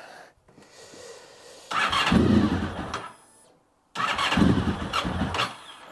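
Honda RC45's 750 cc V4 being cold-started on the choke: it fires and catches, runs for a second or so and dies away, then fires again and runs another couple of seconds before faltering. This is its cold-starting fault: it fires initially, then peters out and will not keep running.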